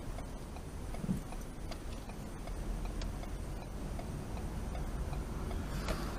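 Car's turn-signal indicator ticking about one and a half times a second inside the cabin while the car turns, over a steady low engine and road rumble. A brief rush of noise comes near the end.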